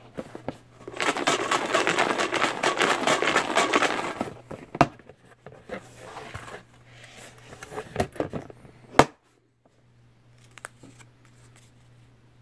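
Paper raffle slips rattling and sliding inside a clear plastic tote as it is shaken, with clicks of the plastic. The rattle is loudest for the first few seconds and comes back weaker later. A single sharp click comes about nine seconds in.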